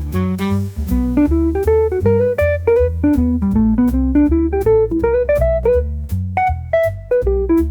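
Upbeat jazz music: a plucked guitar melody in short notes rising and falling over a bass line and a steady drum-kit beat.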